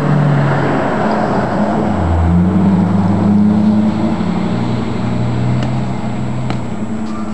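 A motor engine running steadily, its pitch dipping and shifting about two seconds in, with a few faint clicks near the end.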